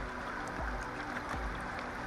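Steady rush of river water flowing past a rocky bank, with a couple of soft low bumps.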